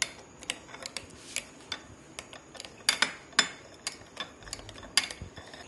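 Metal spoon mashing mango pulp in a glass bowl, clinking against the glass in a string of irregular clicks, the sharpest around three seconds in and one near the end.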